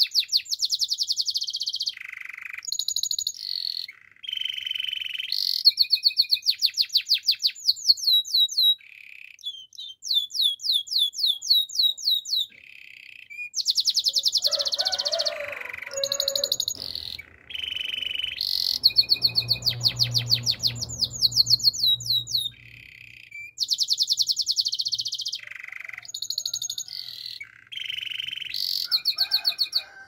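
White domestic canary singing: phrases of very fast, high trills and rolls of repeated notes, broken by short pauses.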